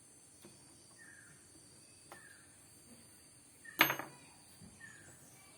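A single sharp knock or clatter a little past the middle, ringing out briefly, over quiet background with a few faint short chirps.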